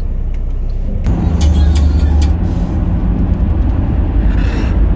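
Car engine and road noise heard from inside the cabin, growing louder about a second in as the car pulls away from a stop and speeds up.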